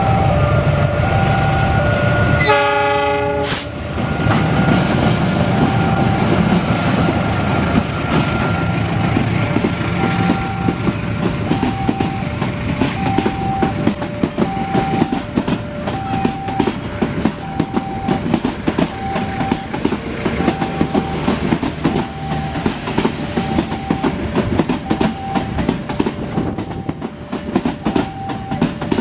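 A diesel locomotive pulling passenger carriages passes close by, sounding a short horn blast about two and a half seconds in, then the steady rumble and clickety-clack of the carriages going over the rails. A level crossing alarm keeps alternating between two tones the whole time.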